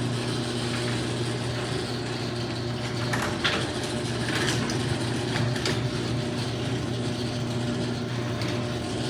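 Garage door opener running steadily as it raises the door through a full up cycle, a low motor hum with scattered clanks and rattles from the moving door.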